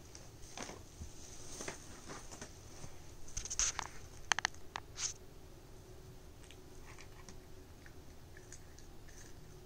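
A cat chewing treats from a plastic puzzle feeder: scattered small crunches and clicks, with a cluster of sharper clicks a few seconds in.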